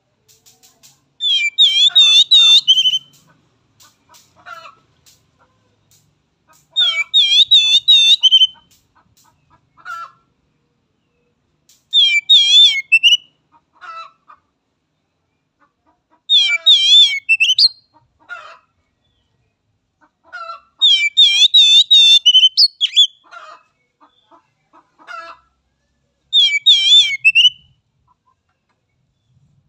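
Oriental magpie-robin (kacer) singing six loud bursts of fast, rippling trilled phrases about five seconds apart, with softer, lower single notes in between.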